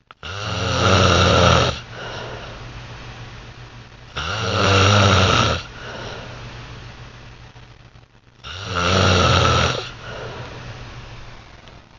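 A sleeping man snoring: three loud, rattling snores about four seconds apart, each lasting about a second and a half, with quieter breathing between them.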